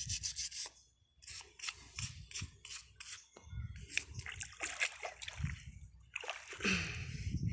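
A brush scrubbing tuway (mud clam) shells in quick repeated strokes, several a second, with some water sloshing, to get the mud off them.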